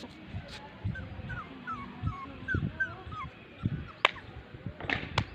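Dog whimpering: a run of short, high-pitched whines, about eight in a row, followed by a few sharp clicks near the end.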